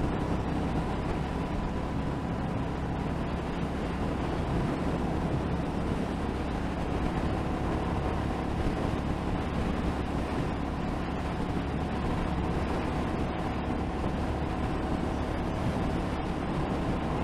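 Motorcycle engine running at a steady cruising speed, holding an even pitch, mixed with wind and road noise from riding at speed.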